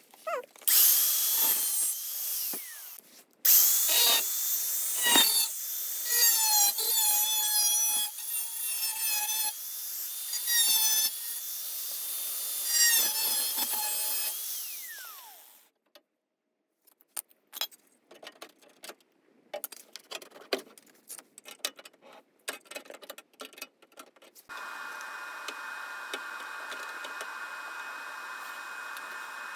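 A power tool working on car body metal for about fifteen seconds, its high whine wavering in pitch. Then come scattered crackling clicks, and a steady hum near the end.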